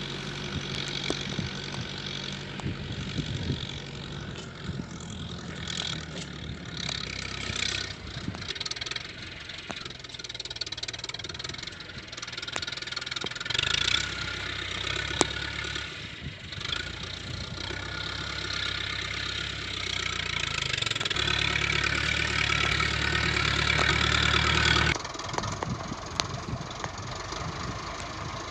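Massey Ferguson tractor's diesel engine running steadily as it drives with a front loader, growing louder as it comes closer. The sound drops abruptly about 25 seconds in.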